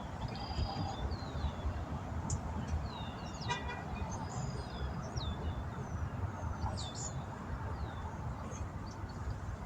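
Parking-lot ambience: a steady low rumble of traffic, with many brief high chirps of small birds throughout. About three and a half seconds in comes one short toot, like a vehicle horn.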